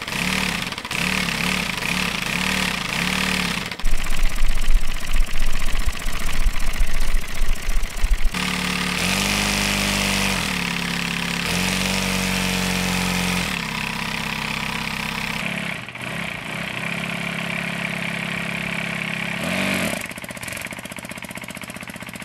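3D-printed compressed-air engine running through a copper-pipe exhaust, its exhaust note rising and falling in speed as the air supply is worked. A louder, rougher stretch begins about four seconds in and lasts about four seconds.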